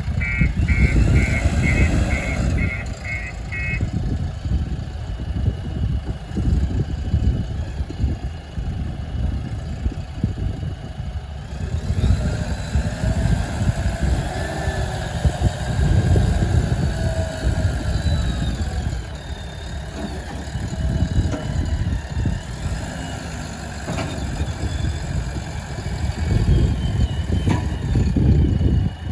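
The diesel engine of a JCB 3DX backhoe loader runs steadily. An electronic warning beeper sounds eight short high beeps, about two a second, over the first four seconds.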